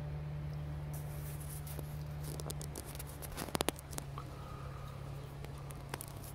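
Grey squirrel's claws scratching and clicking on a wooden beam as it moves about, with a quick cluster of sharp clicks about halfway through, over a steady low hum.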